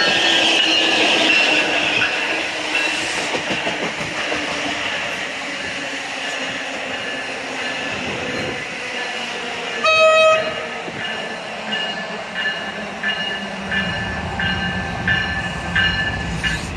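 An NJ Transit bilevel train hauled by an ALP-46 electric locomotive rolling past, a steady rush of wheels and air. About ten seconds in comes one short train horn blast, and after it a run of short high tones and a low hum as another train pulls in.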